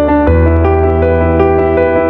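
Background music: a piano-like keyboard playing a run of evenly spaced notes over a held bass note, which changes to a new, stronger bass note about a third of a second in.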